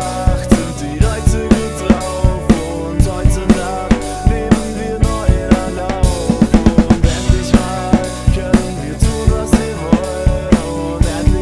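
A drum kit played in a steady groove of kick and snare over a backing track of held pitched instruments, with a quick fill of rapid hits about six to seven seconds in.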